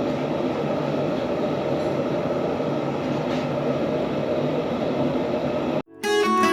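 Forge running with a steady rushing noise, cut off abruptly near the end by plucked-string background music.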